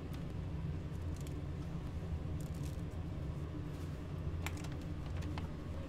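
Steady low mechanical hum with a few light clicks and clinks over it, a cluster about halfway through and two more near the end.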